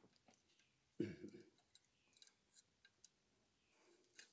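Near silence with faint, scattered small metal clicks and ticks from a thin pick tool working a valve collet into the spring cap of a VW 16V cylinder head under a valve spring compressor. A brief muffled voice sound about a second in.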